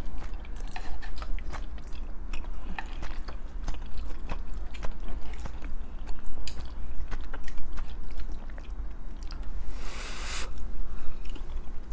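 Close-up eating sounds from a tteokbokki and ramen noodle meal: chewing, with small clicks of chopsticks in the pan as noodles are lifted, and a short noodle slurp a little after ten seconds in. A steady low hum runs underneath.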